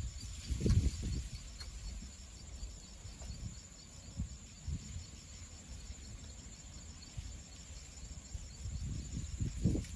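Insects chirping in the field: a steady high buzz with quick, regular pulses. Under it runs an irregular low rumble that swells about a second in and again near the end.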